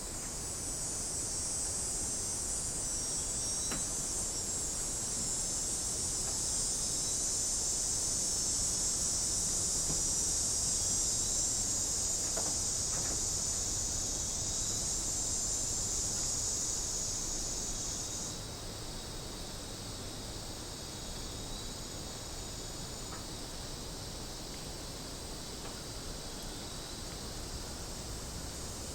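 Cicadas buzzing in a steady, high-pitched chorus that swells over the first several seconds, then drops abruptly to a quieter level about two-thirds of the way through.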